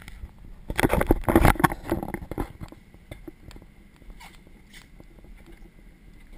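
Handling noise from a handheld action camera, rubbing and knocking for about two seconds near the start as it is turned around. After that a steady low machinery hum with a faint high whine, broken by a few light knocks, like a ship's ventilation and engine hum in a steel corridor.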